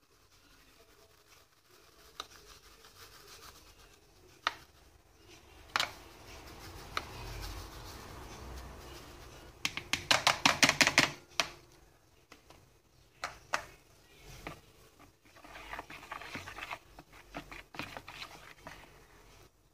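Yeast being sifted through a plastic sieve over a bowl of batter: soft rubbing with scattered ticks, and a quick run of loud clicks about halfway through. Near the end, a hand whisk scrapes and stirs the batter.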